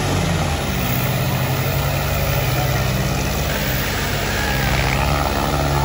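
Diesel tractor engine running steadily and loud.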